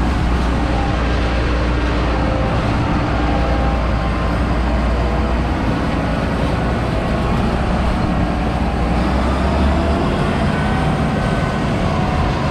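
A motor vehicle's engine running steadily while driving: a continuous low rumble that eases slightly near the end.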